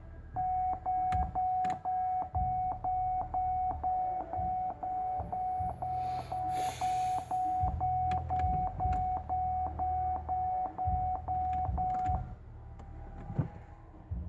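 A 2007 Cadillac STS's electronic warning chime beeps one mid-pitched tone about three times a second, then stops about twelve seconds in.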